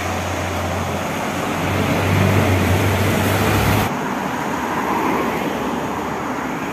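Road traffic noise from cars passing close by on the road beside the pavement. A steady low rumble under the noise swells in the middle and stops abruptly about four seconds in, leaving lighter traffic noise.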